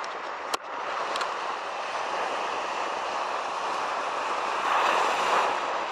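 Ocean surf washing steadily, swelling briefly about five seconds in, with a single sharp click about half a second in.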